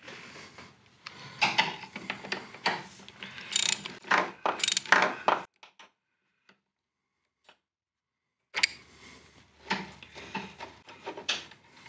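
Hand socket ratchet clicking in quick runs as a nut is worked loose on the mower's engine mounting, with a silent gap of about three seconds in the middle.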